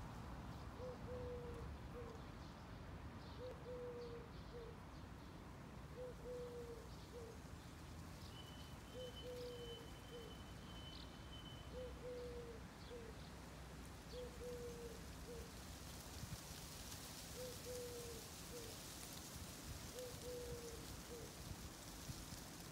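A dove cooing, the same three-note phrase (short, long, short) repeated about every two and a half to three seconds, over a faint low steady rumble, with a few faint high chirps from small birds.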